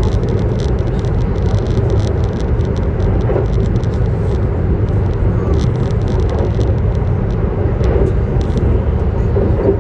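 Steady low rumble of a CR400BF Fuxing high-speed electric multiple unit running on the line, heard from inside the passenger car, with frequent faint ticks and rattles over it.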